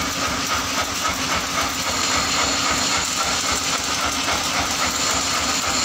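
Motor-driven grinding wheel running steadily, with a continuous grinding hiss over a constant motor hum as metal is held against the wheel.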